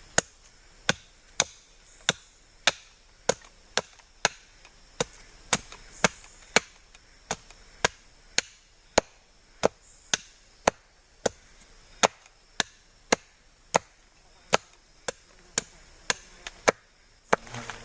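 Wood being chopped in a steady, even rhythm: about thirty sharp strokes, roughly two a second.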